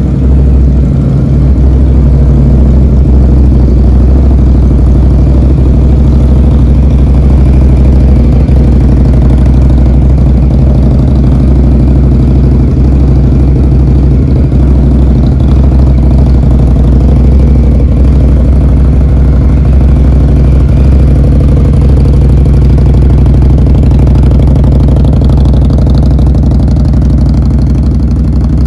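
Indian Scout Bobber Twenty's liquid-cooled 1133 cc V-twin idling steadily through Vance & Hines mufflers, loud and even throughout.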